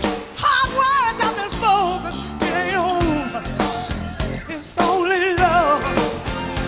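Rock song played by a live band, a singer holding notes with a wide vibrato over drums and bass.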